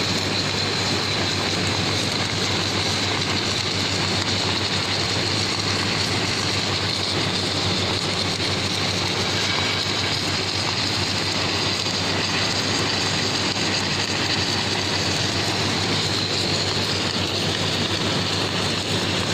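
Submerged arc welding machine running steadily on a job: an even, unbroken noise with a steady low hum underneath.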